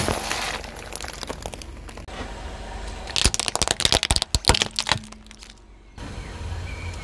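Hard plastic toy airplanes cracking and snapping under a slowly rolling car tyre: a quick run of sharp cracks in the middle. At the start, a spraying hiss fades out as a drink can bursts under the same tyre.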